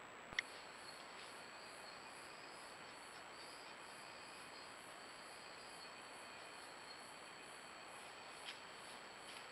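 Night insects calling: a steady high-pitched trill together with a higher chirring that pulses about three times a second, over a faint hiss. A single sharp click comes just after the start.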